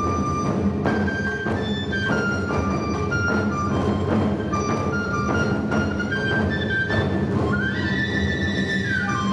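Live instrumental ensemble music: a melody of short held notes moving over a steady low accompaniment, punctuated by drum strokes, with a higher line held through the last couple of seconds.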